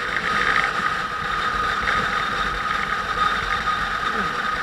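Motorcycle running steadily, its engine drone under a constant rushing noise.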